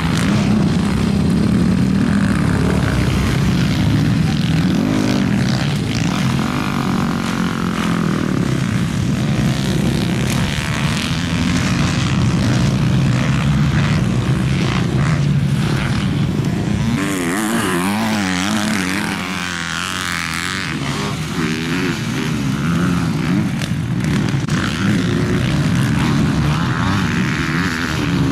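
Kawasaki KX450 four-stroke single-cylinder dirt bike engine being ridden hard, its pitch rising and falling with the throttle and gear changes. A little past halfway it dips a little quieter, the pitch sliding up and down, then climbs again.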